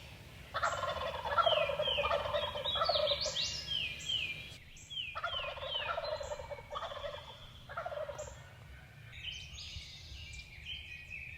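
Wild turkey gobblers gobbling, three loud gobbles in a row, followed by fainter, higher bird calls near the end.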